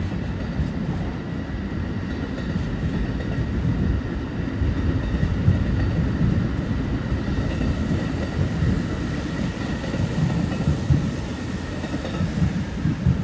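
Amtrak passenger train rolling past on the rails, a steady low rumble of wheels and cars.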